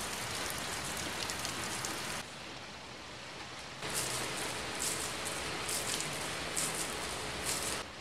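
Heavy rain pelting a car's roof and windows, a dense steady hiss with sharper splashes. It drops abruptly about two seconds in and comes back louder about four seconds in.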